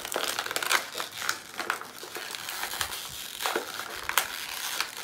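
Clear plastic action-figure packaging crinkling and crackling in a child's hands as it is opened, with many short sharp crackles.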